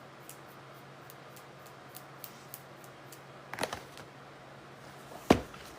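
Light clicks and taps of kitchen items being handled during baking, with a brief clatter about three and a half seconds in and one sharp knock a little after five seconds, over a faint steady hum.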